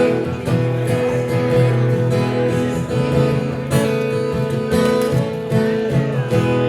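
Acoustic guitar strummed alone in an instrumental passage between sung verses of a folk song, chords ringing in a steady rhythm.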